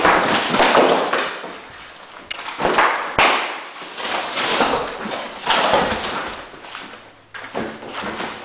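Broken drywall (gypsum board) pieces being handled and dragged, scraping and rustling in repeated rough swells, with a sharp knock about three seconds in.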